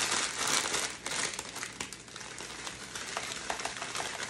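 Clear plastic bag of dried oregano crinkling and rustling as a hand pinches the herb out of it, with small crackles of the dry leaves. Loudest and densest in about the first second, then softer, scattered crinkles.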